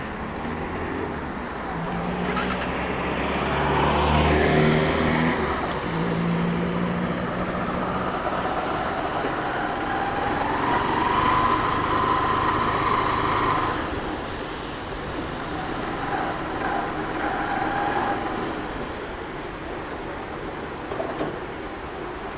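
Small motorcycle running at low speed on a wet city street, with tyre hiss and passing traffic. A steady whine comes in near the middle and fades out a few seconds later.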